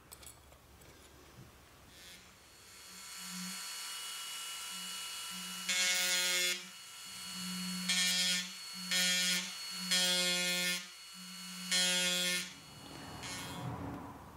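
Small handheld rotary tool running with a steady hum from about two seconds in, its bit cutting into the wood of a Japanese maple bonsai trunk in five loud bursts; it stops near the end.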